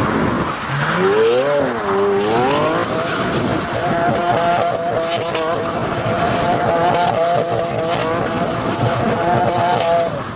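Lamborghini Aventador's V12 revving up twice, then held at high revs with a wavering pitch while the rear tyres spin and squeal in a smoky donut burnout.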